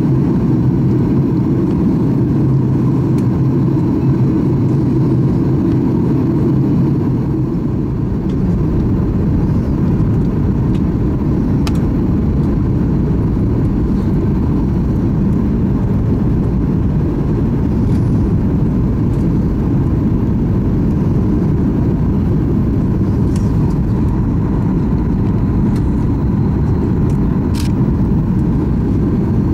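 Steady engine and airflow rumble inside the cabin of a Boeing 737 MAX 8 with CFM LEAP-1B engines. A low hum within it drops away about seven seconds in.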